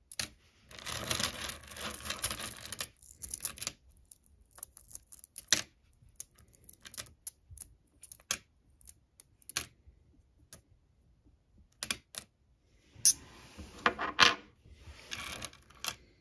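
Small weak-magnetic ferrite pebbles clicking and clattering against one another as they are handled. There is a dense rattle for the first few seconds and again near the end, with single sharp clicks in between.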